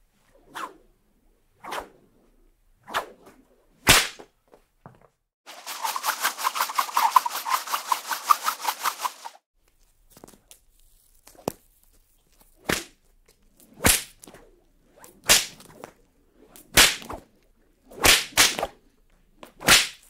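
Whip cracks and lashes: a series of single sharp cracks, some preceded by a short swish, spaced about a second apart. From about five seconds in, a rapid run of many quick lashes lasts nearly four seconds.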